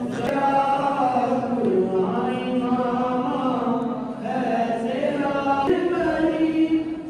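Voices chanting Islamic devotional verses unaccompanied, in long held melodic phrases with short breaks between them.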